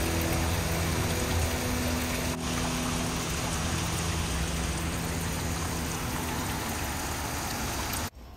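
Steady hiss of heavy rain falling on wet pavement, with runoff water running along the gutter; it cuts off suddenly near the end.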